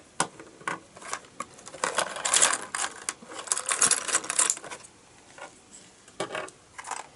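Small plastic Lego pieces clicking and clattering as they are sifted through and handled, in quick flurries that are busiest from about two to four and a half seconds in, then thin out.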